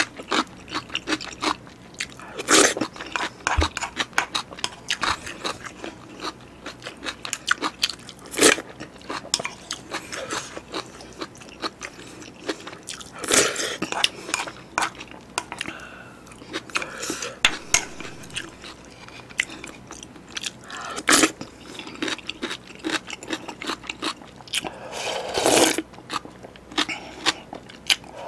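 Close-miked eating: mouthfuls of beef bulgogi and broth chewed and swallowed, with a wooden spoon scraping and knocking in a black earthenware ttukbaegi bowl. A louder sound stands out every few seconds among the many small mouth and spoon clicks.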